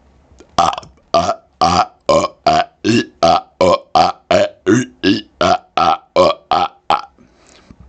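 A man burping rapid-fire right up against the microphone: a string of about seventeen short burps, about three a second, stopping near the end.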